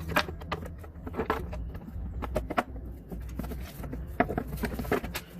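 Irregular metallic clinks and knocks of hand tools and mower parts being handled, over a low steady hum.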